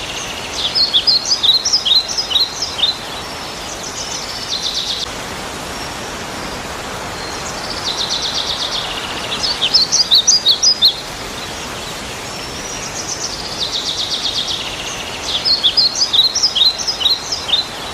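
A bird singing the same phrase over and over, about every six to seven seconds: a high buzzy trill, then a quick run of sharp chirps. Steady background noise runs underneath.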